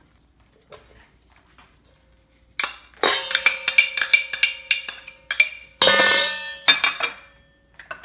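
A utensil clinking rapidly against a ringing metal mixing bowl as salad dressing is stirred, starting a few seconds in, with a louder scrape about six seconds in.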